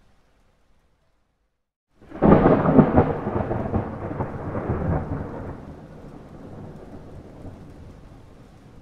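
A thunder clap: after about two seconds of near silence, a sudden loud crack with crackling, then a rolling rumble that fades away over several seconds.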